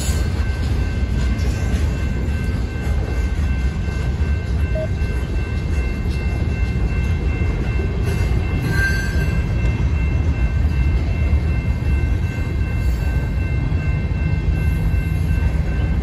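Freight train passing at a grade crossing: boxcars and covered hopper cars rolling by on the rails with a steady low rumble.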